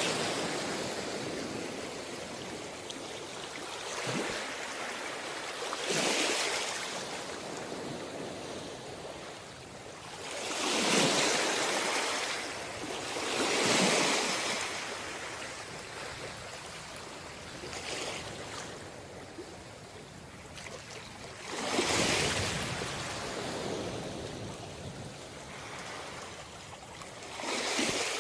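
Sea waves breaking and washing up a beach, a steady wash of surf with about five larger waves that swell and fade over a second or two each.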